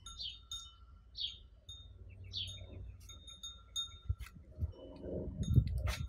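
A bird chirping over and over in short falling notes, with a few held ringing tones. In the second half come low knocks and rustles of the fort's poles being handled, and a sharp click near the end.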